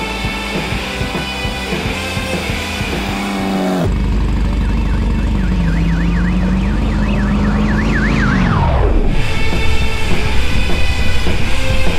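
Rock music for about the first four seconds, then the engine of an off-road race vehicle approaching and passing close by. A fast warbling high tone rides along with the engine, and both drop steeply in pitch as the vehicle goes past. Loud, fluctuating engine noise follows.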